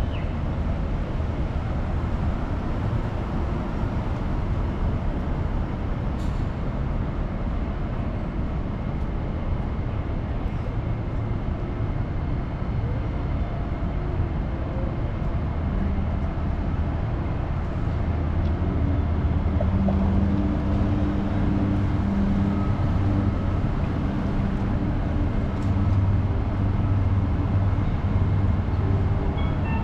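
City street traffic rumble. About halfway through, the steady hum of a heavy vehicle's engine comes in and grows a little louder.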